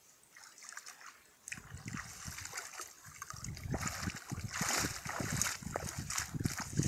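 Water splashing and sloshing as a cast net holding large tilapia is hauled through the shallows, the fish thrashing in it. It starts faint and grows louder and busier from about a second and a half in.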